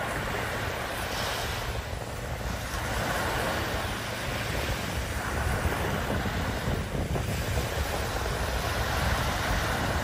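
Small sea waves breaking and washing up a sandy beach, the wash swelling and fading every couple of seconds, over a steady low rumble of wind buffeting the microphone.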